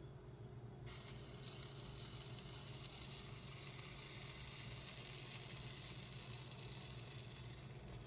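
Pancake batter frying in hot oil in a pan with a steady sizzle. The sizzle comes up suddenly about a second in.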